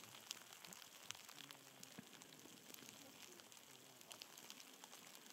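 Near silence: a faint hiss with scattered light ticks and crackles, the patter of wind-driven snow on tent fabric.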